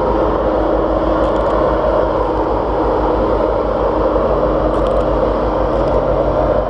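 Ride-on backyard miniature train running along its track: a steady rumble with a faint steady hum under it and a few light ticks.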